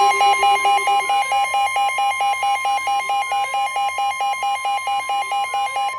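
NOAA Weather Radio warning alarm: a steady single tone near 1 kHz, with a rapid electronic beeping of about five beeps a second over it. The beeping stops at the very end, leaving the steady tone, which signals that a warning message is about to be read.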